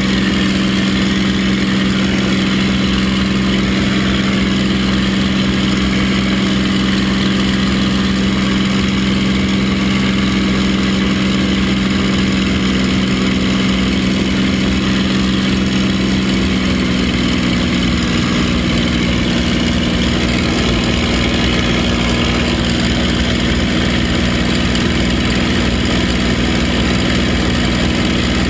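P-51 Mustang's V12 piston engine and propeller droning steadily in cruise flight, heard from inside the cockpit. The pitch of the drone shifts slightly a little past halfway.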